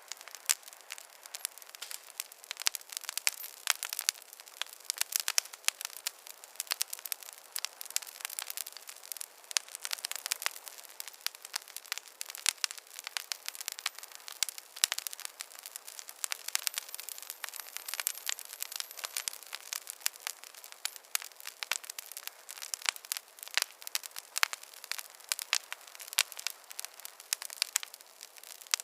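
Wood fire crackling: a dense, irregular run of sharp pops and snaps over a light hiss, with no low rumble.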